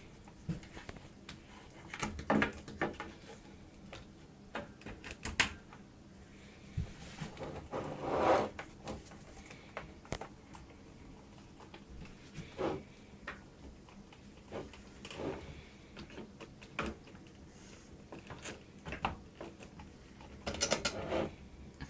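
Scattered clicks, knocks and rustling of power-supply cables being handled and plugged in: plastic connectors pushed into a motherboard and graphics card, and sleeved cables rubbing, with a longer rustle about eight seconds in and another near the end.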